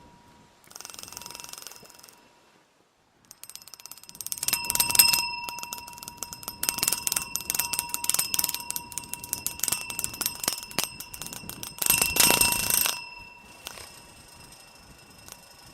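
Wind-whipped guy line slapping and rattling against an aluminium tent post, a quick run of clicks with the hollow post ringing at several steady pitches. A brief lull early on, then a long spell of flapping with the loudest gusts about five and twelve seconds in, before it dies down to faint ringing.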